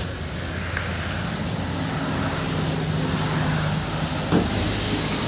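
Suzuki Multicab engine idling steadily, with a single sharp knock about four seconds in.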